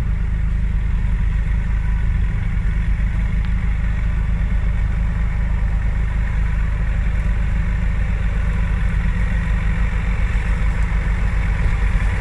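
Off-road 4x4 engine running steadily at low revs, a constant low drone with no change in speed.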